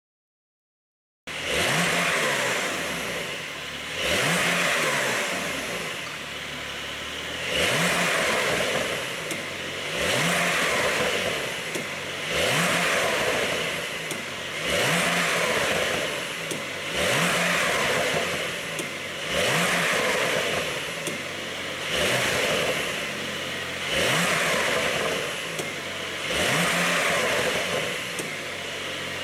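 Porsche 911 Carrera (992) twin-turbo flat-six, on an ECU exhaust tune, revved in short blips about every two and a half seconds, each rising then dropping back to idle. It starts suddenly after a second of silence.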